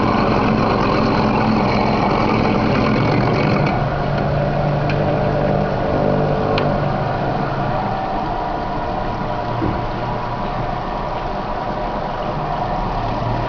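Glass grinding machine running steadily: motor hum under the grinding noise of its rotating table. About four seconds in a higher hiss drops away and a lower hum comes up.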